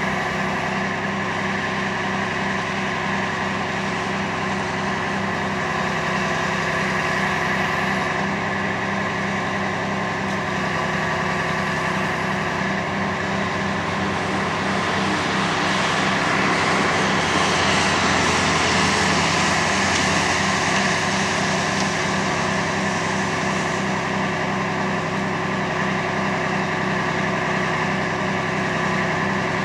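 Heavy diesel engine running steadily with an even pulsing beat, louder and heavier for a few seconds around the middle.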